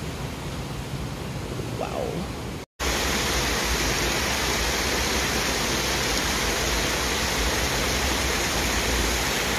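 Steady rushing water, as of a river or waterfall. It cuts off abruptly a little under three seconds in, then resumes louder and fuller.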